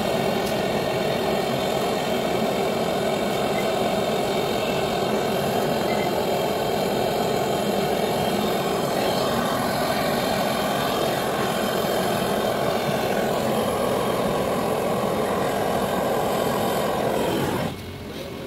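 Gas brazing torch flame burning with a steady rush as it heats a copper pipe joint on an air-conditioner compressor; the flame stops shortly before the end.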